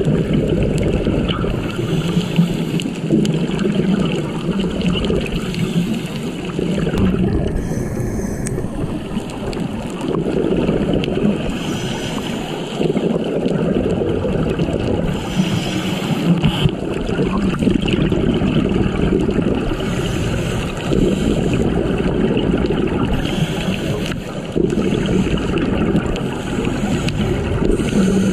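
Underwater sound of a scuba diver breathing through a regulator, with bursts of exhaled bubbles about every four seconds over a steady low rumble, muffled as heard through a camera housing.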